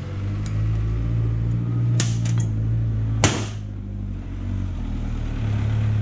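Metal clinks as the nut and pulley are worked off a Toyota 1UZ-FE hydraulic fan pump, with a louder ringing clank about three seconds in. A steady low hum runs underneath.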